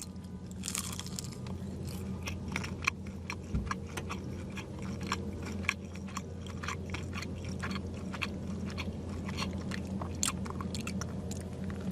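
A person chewing a crispy chicken McNugget close to the microphone: many small crunches at an irregular pace.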